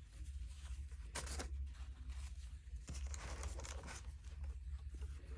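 Faint rustling and handling of a microwave flower press's pads and plates, with a sharper click about a second in.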